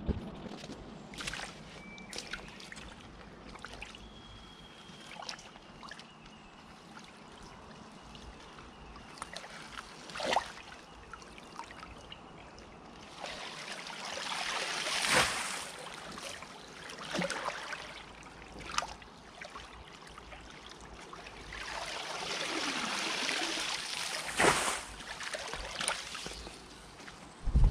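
Mud and leaf debris being scraped out of a concrete irrigation channel with a long-handled tool, with a trickle of water in the channel. Scattered sharp knocks, and two longer swells of scraping, one just before the middle and one about two thirds in.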